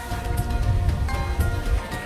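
Background music with held notes that change about halfway through, over a low rumble.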